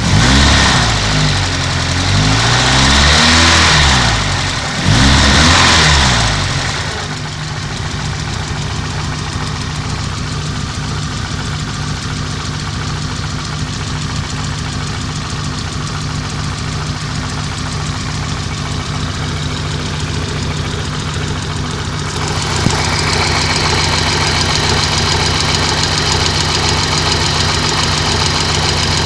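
Car engine, freshly rebuilt with a reground crankshaft, revved twice in the first few seconds and then idling steadily, with a dull knock that the owner says appeared some time after the crankshaft grinding. About 22 seconds in, the engine sound grows louder and brighter.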